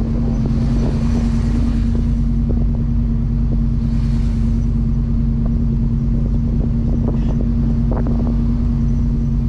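Car running: a steady low engine drone with a constant hum, and two brief swells of hiss about a second in and about four seconds in.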